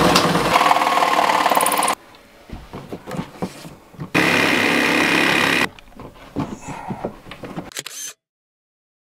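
Cordless drill running as it bores through a wooden cabinet panel for about the first two seconds. After that come scattered handling clicks, with another short steady whir about four seconds in.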